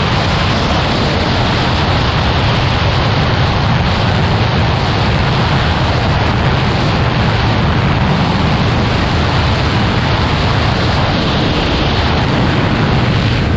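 Steady wind rush over the microphone of a Kawasaki Ninja 400 riding at speed, with the parallel-twin engine running underneath at an even pitch.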